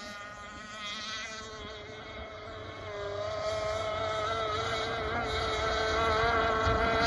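Bonzi Sports 47 Skater RC boat's engine running flat out across the water, a steady high-pitched drone with a slightly wavering pitch. It grows louder from about halfway in.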